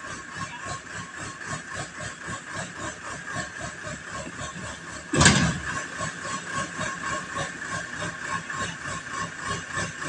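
Heavy diesel engine of a backhoe loader running steadily with a regular throb. About five seconds in there is one sudden loud thump, lasting under a second.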